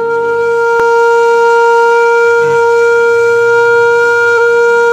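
Background music: a wind instrument holding one long, steady note over a soft low drone.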